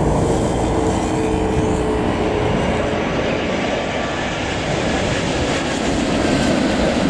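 Boeing 787 Dreamliner's Rolls-Royce Trent 1000 jet engines on final approach to land, a loud, steady roar of jet noise as the airliner comes in low overhead.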